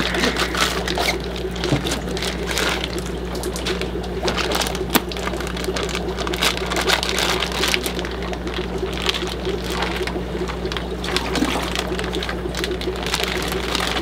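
Water-filled plastic fish shipping bags being handled and opened, crinkling and crackling, with water sloshing and pouring out as the fish are emptied. A steady low hum sits under it throughout.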